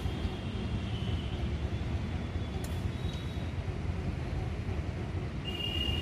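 Steady low-pitched background rumble, with faint short high tones near the start and a brief clearer high tone near the end.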